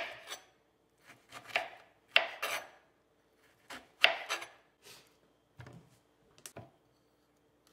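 Kitchen knife cutting and peeling a lemon on a plastic cutting board: about seven separate cuts and knocks of the blade on the board, with quiet gaps between them.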